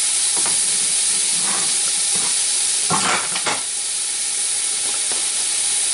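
Chuck roast searing in hot oil in an electric pressure cooker's inner pot, sizzling steadily. A brief louder noise comes about three seconds in.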